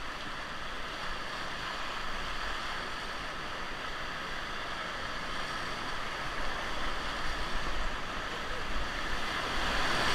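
Rushing whitewater of river rapids heard from a raft: a steady hiss of moving water, getting a little louder and choppier over the last few seconds.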